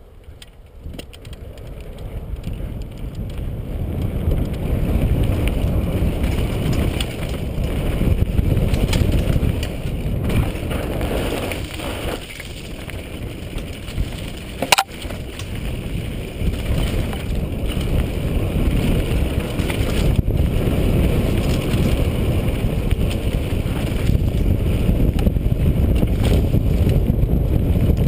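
Santa Cruz Nomad mountain bike riding downhill on a dirt trail: wind rushing over the microphone mixed with the tyres rolling and the bike rattling over the ground. It builds over the first few seconds as speed picks up, and there is a single sharp click about halfway through.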